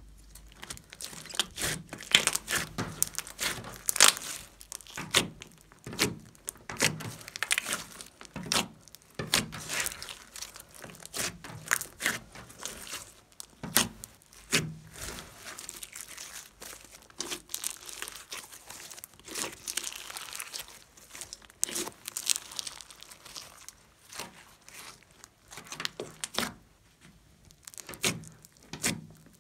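Hands kneading and squishing a large lump of bead-studded slime, giving a run of irregular sticky crackles, squelches and small air-bubble pops.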